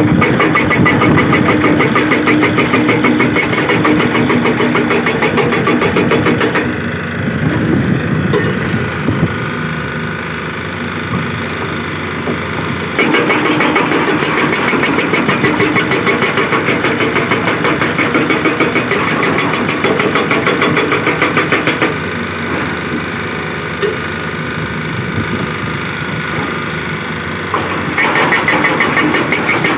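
SHS 81 hydraulic rock breaker on a digger's arm hammering rock, a rapid, even stream of blows in three spells: the first seven seconds or so, again from about thirteen to twenty-two seconds, and from near the end. Between the spells the hammering stops and only the machine's engine runs.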